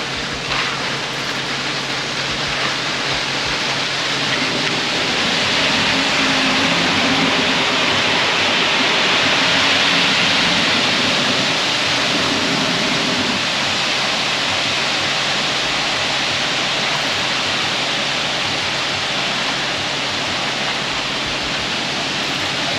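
Wet concrete rushing out of a concrete mixer truck down its chute: a steady, rushing hiss that swells through the middle, with the truck's engine running underneath.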